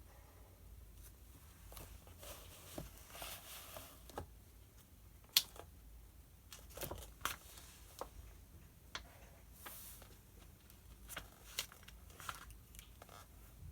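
Quiet desk sounds of someone studying: scattered light clicks and taps, with short scratchy stretches of writing on paper and paper handling. The sharpest click comes about five seconds in.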